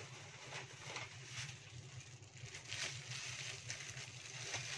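Faint scattered light clicks and rustles over a steady low hum.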